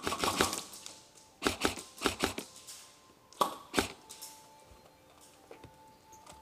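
Airsoft guns firing short, rapid bursts of clicking shots: a burst right at the start, two more about a second and a half and two seconds in, then two single sharp cracks a little later, with quieter stretches between.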